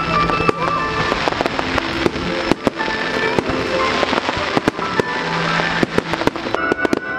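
Fireworks bursting in quick succession: many sharp bangs at irregular intervals, packed closely together, with music playing alongside.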